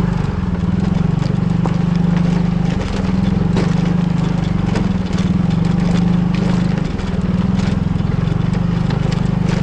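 Small motor scooter's engine running at low riding speed, a steady fast putter that eases and picks up again a few times.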